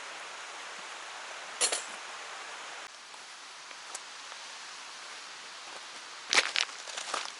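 Steady rush of a stream. There is a sharp click a little under two seconds in, and a quick run of knocks and clicks near the end.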